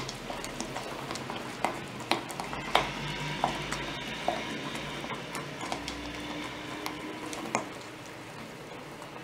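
Silicone-coated balloon whisk stirring thick béchamel sauce in a small metal saucepan, with soft scraping and irregular light knocks of the whisk against the pan.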